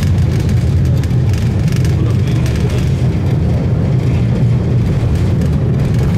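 Steady low rumble of a tram running along its track, heard from inside the passenger car.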